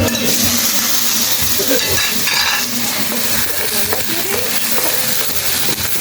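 Okra frying in a pot, sizzling steadily.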